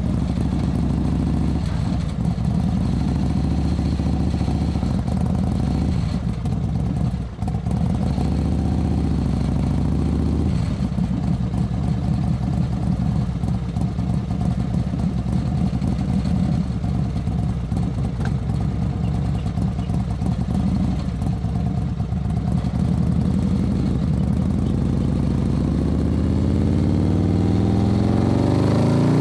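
Motorcycle engine running at a steady idle with a fast, even pulse, then revving up with a rising pitch near the end.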